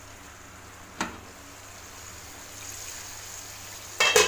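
Potato and tomato curry simmering on low heat under an aluminium lid, a steady faint bubbling hiss with a single sharp click about a second in. Near the end the metal lid comes off with a loud, brief clatter.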